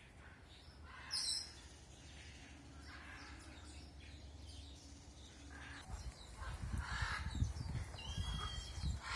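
Scattered animal calls: a sharp high call about a second in, faint calls throughout, and a short whistled note near the end. From about six seconds in, a low rumble with thumps comes in.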